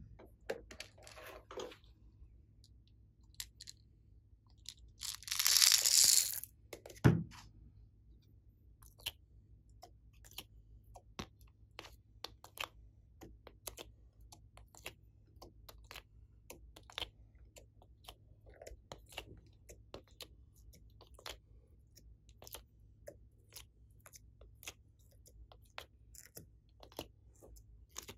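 Plastic ice-cube tray giving irregular sharp clicks and crackles, two or three a second, as clay cubes are pushed out of it one by one. About five seconds in there is a loud rustling hiss lasting about a second and a half, then a single thud.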